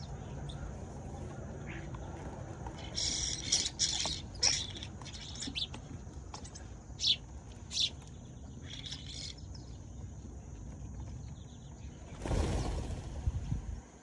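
Sparrows chirping: a run of short, high chirps lasting several seconds over a steady low background rumble, followed near the end by a brief burst of noise.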